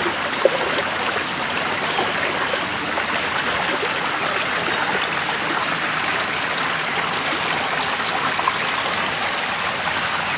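A small rocky stream flowing over and between boulders: a steady rush of water.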